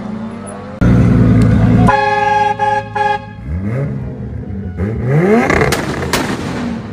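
A loud burst of car engine noise, then a horn sounding several notes at once for about a second. Then a Toyota Supra's engine is revved in quick rising sweeps, with two sharp cracks from the exhaust near the end.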